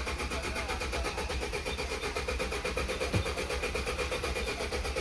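Maruti Swift diesel engine being cranked by its starter motor without firing: a steady starter whine under an even, rapid pulsing of the turning engine. It is a long hard start, with the engine not building compression.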